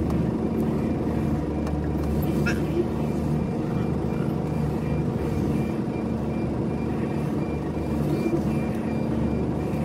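Engine of a 26-foot box truck running steadily, heard from inside the cab as the truck moves slowly, with music playing.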